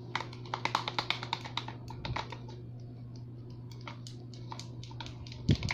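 Wooden stick stirring slime in a clear plastic cup, tapping and clicking against the cup wall in quick runs. The clicks are fast for the first couple of seconds, thin out in the middle and pick up again near the end, with a low thump just before the end.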